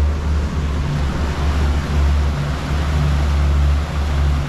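Twin Suzuki DF200APX four-cylinder outboards running steadily at about 2,200 to 2,500 RPM during their break-in, a deep even hum over a steady rushing noise.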